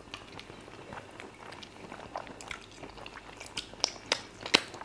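Close-miked eating sounds from people eating fufu and chicken by hand: scattered wet mouth smacks and clicks of chewing and finger-licking, growing more frequent and louder in the second half.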